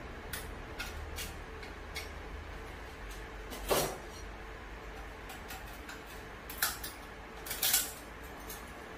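Steady low hum from an idle CR-10 S5 3D printer's fans and power supply while the bed heats. Scattered light clicks and three short, louder clatters break over it, about four seconds in, then twice more near the end.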